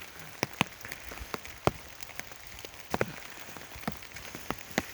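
Raindrops hitting an umbrella overhead: a steady patter with sharp, irregular taps several times a second over a soft hiss of rain.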